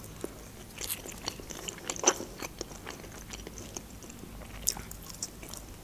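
A person chewing food: irregular soft mouth clicks, with a few louder ones about one second in, two seconds in and near the end.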